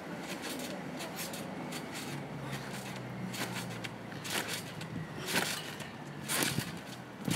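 Feet landing on a trampoline mat, soft thumps about once a second that grow stronger in the second half as the bouncer builds height. A steady low hum sits beneath.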